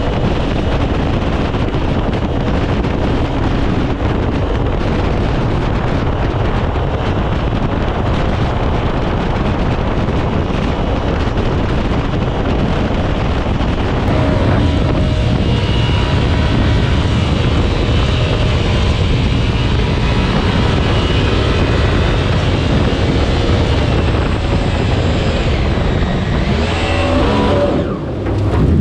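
Mini jet boat running hard at speed, its engine and water jet loud with wind on the microphone. Near the end the engine briefly drops, then revs back up.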